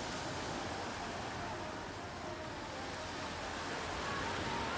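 Steady outdoor ambience: an even wash of noise with faint, scattered distant voices of a crowd in it.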